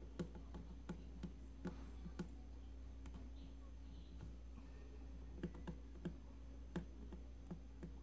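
Small, sharp clicks and taps of a hand tool against an opened Oppo A39 phone during a volume-button flex cable repair, about a dozen at irregular spacing. They come in two bunches with a pause in the middle, over a steady low electrical hum.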